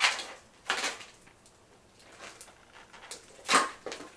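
Latex 260 modelling balloons rubbing and squeaking in the hands as a broken-off balloon end is tied into a knot. There are a few short squeaks with quiet between them, the loudest about three and a half seconds in.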